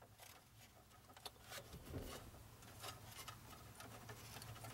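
Faint scattered clicks and rustles of wiring connectors being handled and plugged into the back of a car stereo head unit, over a low steady hum.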